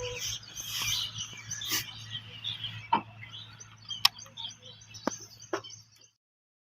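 Small birds chirping and twittering over a steady low hum, with a few sharper chirps in the second half. The sound cuts off abruptly about six seconds in.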